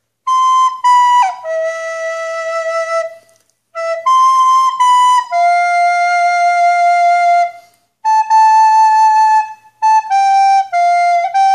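Plastic soprano recorder playing a slow melody phrase, one clear held note after another with short breaks for breath, starting on a high C, stepping down to B and then settling on a longer lower note; the phrase is played again and continues on other notes.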